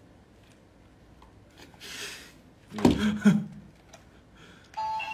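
Toy magic wand switching on near the end and playing a tinny electronic jingle. Before it the room is quiet apart from a short loud voice-like outburst about three seconds in.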